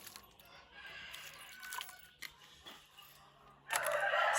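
Chickens clucking faintly, then a rooster crowing loudly starting near the end.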